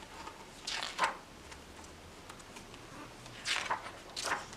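Pages of a picture book being turned: a few short papery rustles, one about a second in and two near the end.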